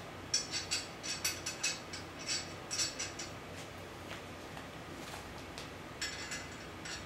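Short bursts of rapid metallic clicking, heaviest in the first three seconds and again about six seconds in: a ratchet wrench running the lug nuts onto a wheel.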